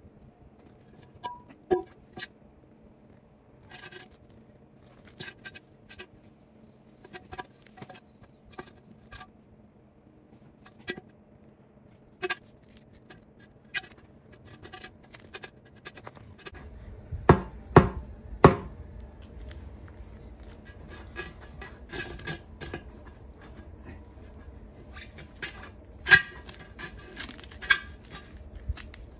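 A new HIFLY HF805 235/50R18 tire handled and pressed onto an aluminium wheel rim by hand: scattered knocks and scrapes of rubber against the metal rim. Three loud knocks come close together a little past halfway, with a low rumble from then on.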